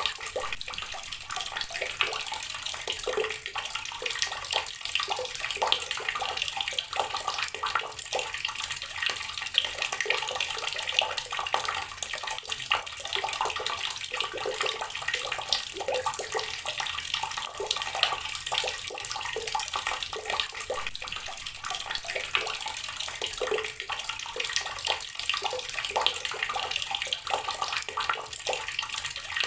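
Water pouring steadily from a tap and splashing onto rocks, a continuous patter of many small irregular splashes.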